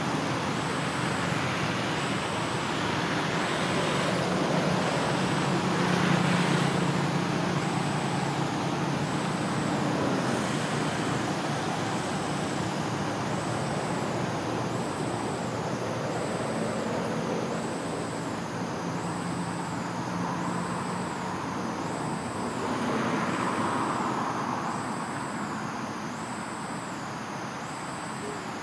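Steady outdoor background noise, like distant traffic, with a low motor hum that swells twice. Over it runs a thin high whine that wavers up and down about once a second.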